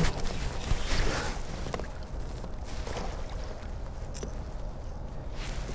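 Scattered splashes and knocks as a hooked pickerel thrashes at the surface beside a kayak, with a sharp click a little past four seconds in.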